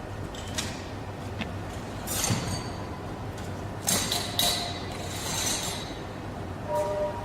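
Light metallic clinks and two short scraping rattles, about two seconds in and again about four seconds in, from a measuring tool being handled against the workpiece, over a steady low hum.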